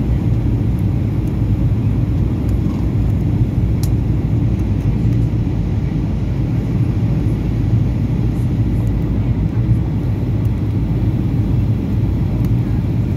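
Steady low rumble of an airliner's jet engines and rushing air, heard from inside the passenger cabin as the plane descends on approach to land.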